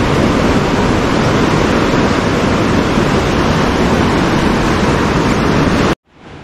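Ocean surf breaking on a sandy beach, a loud steady rush of waves. It cuts off abruptly about six seconds in and comes back much quieter.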